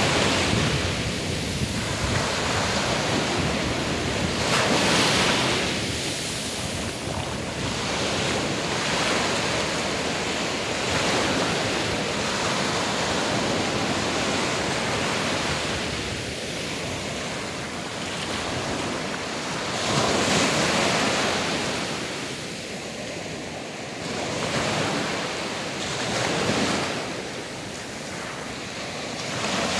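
Small sea waves breaking at the shoreline and washing up over sand: a continuous hiss of surf that swells louder each time a wave breaks, every several seconds.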